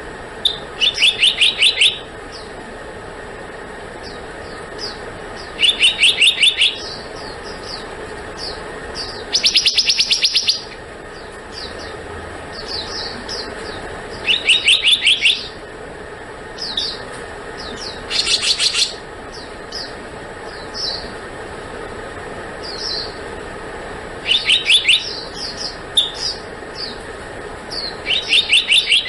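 Black-naped monarch calling: bursts of rapid, evenly repeated high notes, each about a second long, come every four to five seconds, with short single chirps between them, over a steady background hiss.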